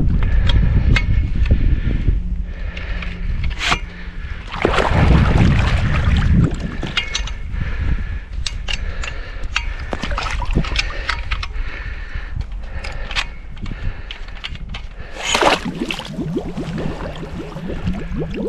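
Lake water sloshing and splashing while a dock is worked out of the shallows, with scattered knocks and clicks throughout. Louder splashes come around five seconds in and again near the end.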